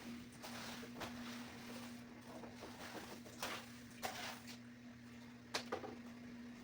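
A faint steady hum with a few light clicks and knocks scattered through it.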